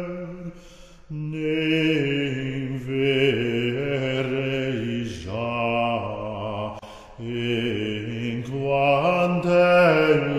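A voice singing a medieval Galician-Portuguese troubadour cantiga in slow, chant-like held notes, with short pauses between phrases about a second in and again near seven seconds.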